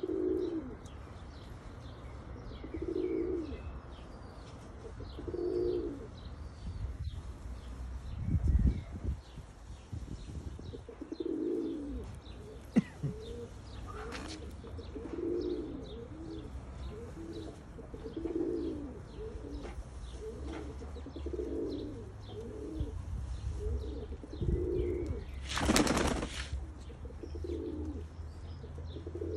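Domestic pigeons cooing, low calls repeating every second or two, with faint chirps of small birds above them. A brief flutter of wings sounds near the end.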